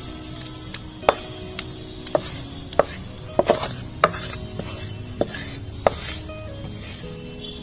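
Wooden spoon knocking and scraping against a steel kadai and steel plate while roasted besan dough is scooped out: about eight irregular sharp knocks, several with a brief metallic ring.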